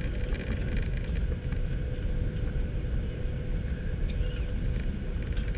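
Cabin noise of a Boeing 737-800 rolling along the runway after touchdown: a steady low rumble from the wheels and engines, with a faint steady hum and a few light rattles.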